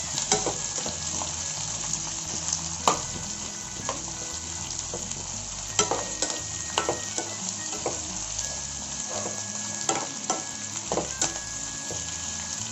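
Sliced onions, curry leaves and cumin sizzling in hot oil in a pan, a steady hiss with scattered clicks of a spatula stirring against the pan.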